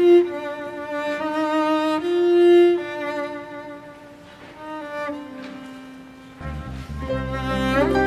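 Background score of bowed strings: a violin playing slow, held notes over lower strings, with deep bass notes coming in near the end.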